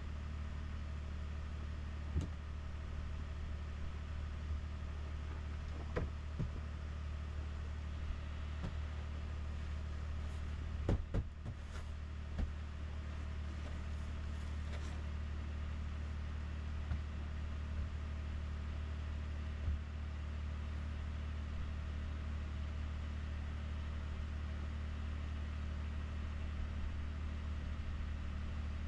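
2021 Ford F-150 PowerBoost's 3.5-litre twin-turbo V6 idling steadily on a remote cold start at about −21 °C, still warming up with the hybrid system keeping the engine running. Scattered knocks and scrapes from a snow brush clearing the truck, with a short cluster about eleven seconds in.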